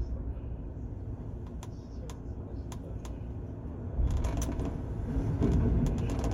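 Low, steady rumble aboard the car ferry Kiso, with scattered creaks and sharp clicks that come thicker and louder from about four seconds in.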